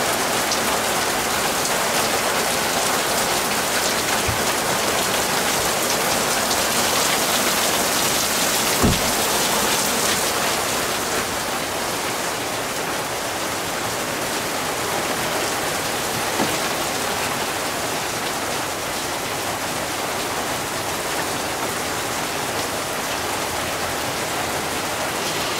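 Heavy downpour: rain pouring steadily on the ground and vehicles, a little quieter after about eleven seconds. A single sharp knock about nine seconds in.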